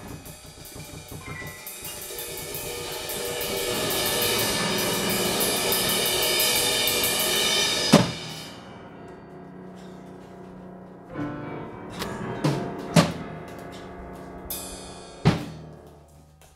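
Drum kit played freely: fast, dense drumming and cymbals that grow louder for about eight seconds and end on one sharp loud hit, then a handful of separate hits.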